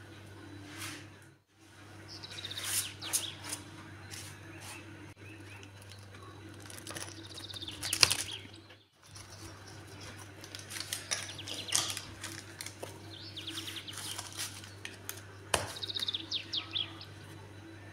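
Birds chirping in quick trills, over a pizza-cutter wheel crunching and scraping through a baked pizza crust on parchment, the loudest crunch about eight seconds in.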